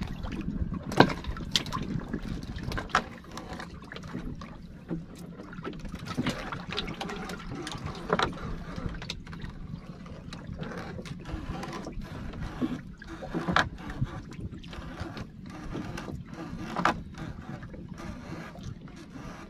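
Irregular clicks and knocks of a longline and its gear being hauled by hand over the side of a small wooden boat, the sharpest about a second in, over a steady low wash of water against the hull.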